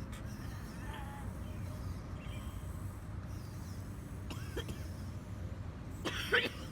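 Steady low rumble, with a short, loud cough-like sound from a person about six seconds in.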